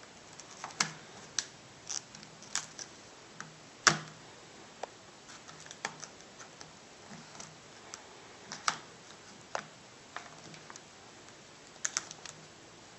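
Scattered light clicks and taps of fingers handling a replacement LCD panel and its display cable connector in an Acer Aspire One D260 netbook's lid, at irregular intervals, with the sharpest click about four seconds in.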